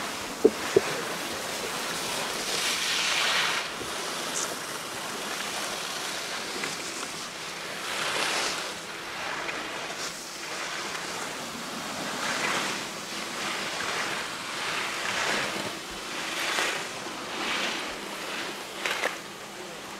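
Skis scraping across hard-packed snow in a series of swishes that swell and fade about every second or two, one per turn through the slalom gates. Two sharp clicks about half a second in.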